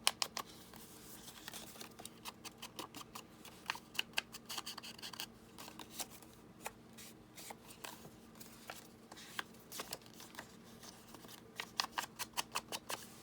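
Paper and card being handled and tucked into a junk journal: scattered soft crinkles, taps and light clicks, coming quicker and more evenly near the end.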